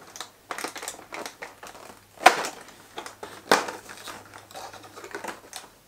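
Cardboard advent calendar door being pressed and torn open along its perforation: a run of crackling tears and clicks, with two louder snaps a little over a second apart around the middle.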